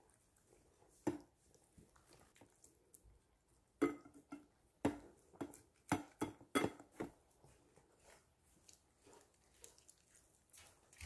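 A dog eating seaweed soup from a stainless steel bowl: wet slurping and chewing, with irregular knocks and clinks as its muzzle and the bowl bump about, several close together in the middle.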